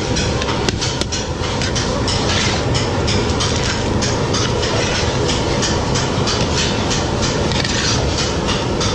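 Steady mechanical clatter: machinery running with a dense rattle of many irregular clicks.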